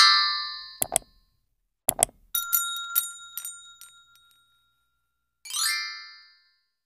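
Subscribe-button animation sound effects: a falling glittery shimmer, two sharp clicks about a second apart, then a run of bright bell-like dings with one note ringing on, and another falling shimmer near the end.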